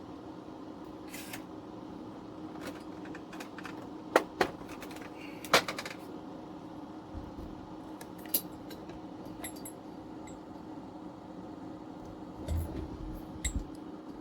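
Small tools and objects being picked up and set aside on a hard work surface: scattered sharp clicks and knocks, loudest about four and five and a half seconds in, over a faint steady hum.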